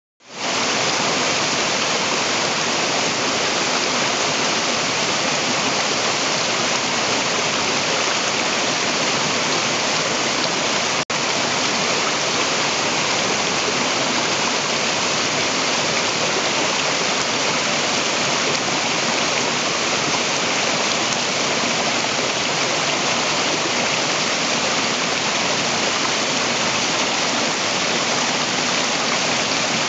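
Waterfall pouring down rock into a pool: a steady, dense hiss of falling water. It drops out for an instant about a third of the way through.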